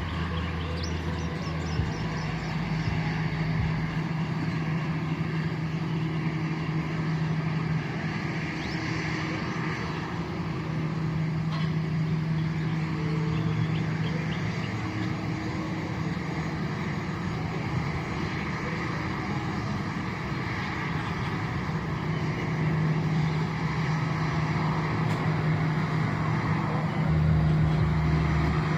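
Airliner's jet engines running steadily: a constant drone with a low hum, swelling slightly now and then.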